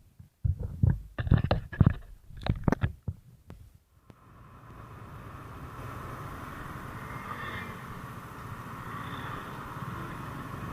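A few irregular knocks and bumps, then from about four seconds in a steady low engine hum with road-wind noise fades in and holds, as heard riding a motorcycle.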